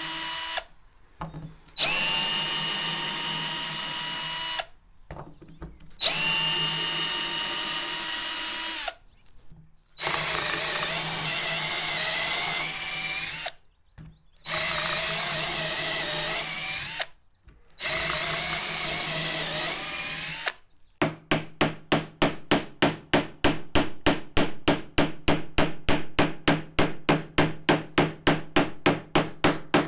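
Tacklife 20V cordless drill running in six bursts of a few seconds each, spinning up at the start of each, as it drives screws and drills into a block of lumber. Its pitch wavers while drilling under load. In the last eight seconds or so a hammer taps a nail in quick, even strokes, about four or five a second.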